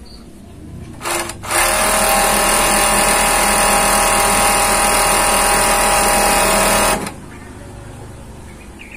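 Typical 747F four-thread industrial overlock machine starting up about a second in and running steadily at full speed for about five seconds as it serges the edge of crinkle fabric, then stopping abruptly.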